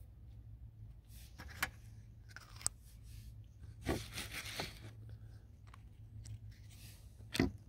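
Fingers handling a phone camera right at its microphone: scattered clicks, rubs and scrapes, the loudest about four seconds in and near the end, over a low steady hum.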